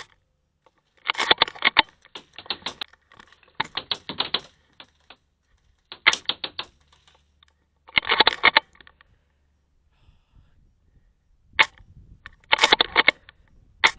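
Airsoft guns firing in rapid bursts, each a clatter of quick clicking shots lasting about half a second, about seven bursts with a few single sharp shots between them.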